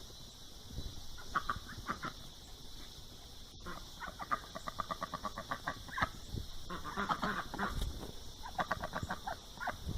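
A duck quacking in quick runs of short, repeated calls, several to the second, busiest in the second half, over a steady high-pitched hiss.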